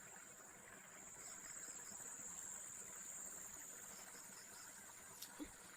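Faint chorus of insects trilling in a steady high-pitched band, with a soft pulsing chirp beneath it. A single sharp click comes near the end.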